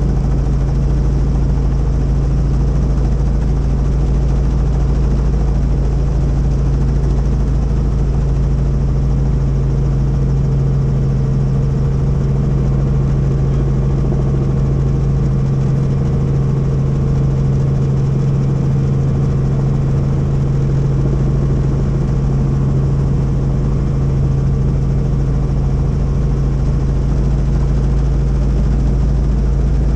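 Helicopter in flight, heard from inside the cabin: a steady, unbroken drone of rotor and engine with a strong low hum and a deep rumble beneath it.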